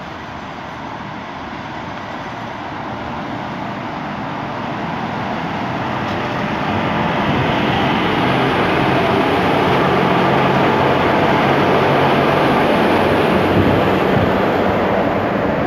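WAP-4 electric locomotive and its passenger coaches passing at speed, the wheels running over the rails. The sound grows steadily louder as the train approaches and stays loud as the coaches go by.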